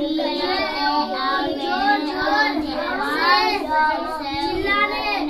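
Young children's voices in a continuous sing-song chant, pitch gliding up and down with no breaks.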